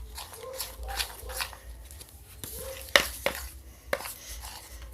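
A utensil stirring thick, sticky slime in a plastic container, with irregular scraping and knocks against the sides and bottom, the sharpest knock about three seconds in. The slime is still being worked with activator and has not yet come away from the container.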